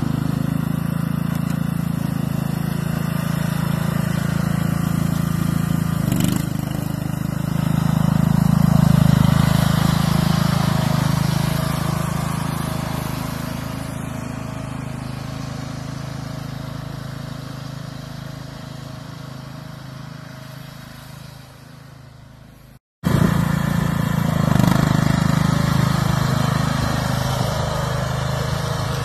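Small riding lawn tractor engine running steadily while the tractor plows snow, swelling briefly and then fading slowly as it moves away. After an abrupt break about three-quarters of the way through, the engine is heard close and loud again.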